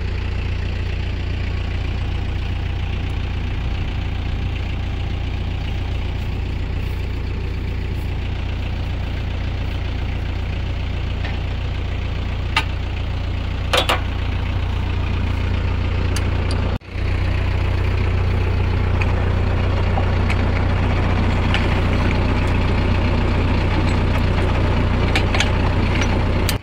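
Engine idling steadily, with a couple of sharp clicks about halfway through and a brief drop-out about 17 seconds in.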